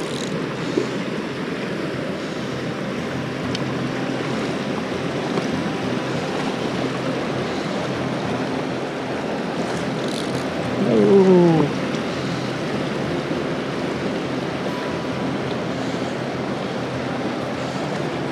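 Steady rush of a rocky mountain stream running over riffles. About eleven seconds in, a short falling voiced sound, like a man's brief "ohh", rises above the water for under a second.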